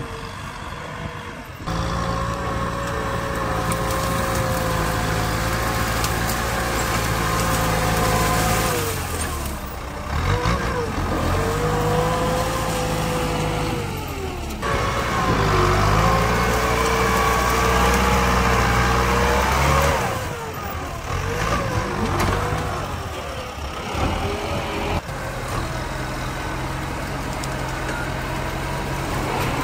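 Kubota tractor's four-cylinder diesel engine working under load while pushing down brush with a front dozer blade. The engine note sags and picks up again several times as the load comes and goes.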